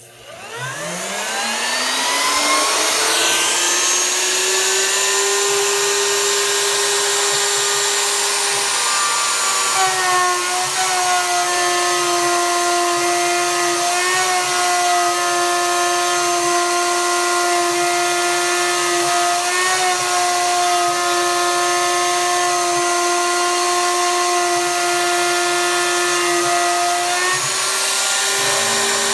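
Craftsman router motor, about 2 horsepower, on a CNC router spinning up with a rising whine over the first few seconds, then running steadily. About ten seconds in its pitch drops slightly as the 1/4-inch spiral bit takes load, typical of the bit cutting into birch plywood.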